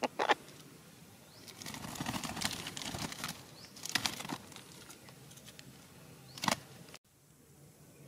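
Red-breasted parakeets flapping and shuffling their wings at a nest hole: short bursts of wing and feather noise at the start, around 4 s and around 6.5 s, with a longer stretch of rustling in between. The sound cuts off abruptly about a second before the end.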